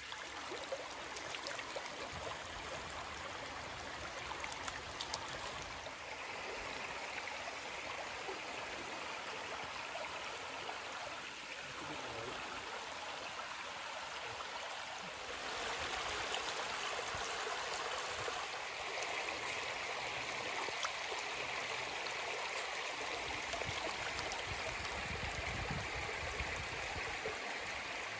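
Shallow creek running over a rock shelf in small rapids: a steady rush of flowing water, a little louder from about halfway through.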